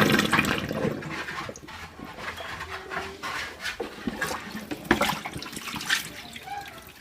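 Water running from a kitchen tap to refill a water bowl, easing off about a second in, followed by light clinks and knocks of the bowl being handled.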